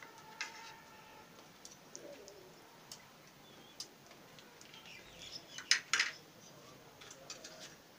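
Metal spoon and knife clicking and scraping against a ceramic plate and a small steel bowl while oil and salt are rubbed into raw spleen before roasting. The light clinks come every second or so, with the loudest few about six seconds in.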